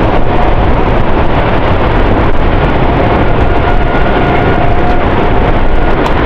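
Tornado roaring, a loud, steady, train-like rumble with wind buffeting the microphone. A faint steady tone sits in it through the middle.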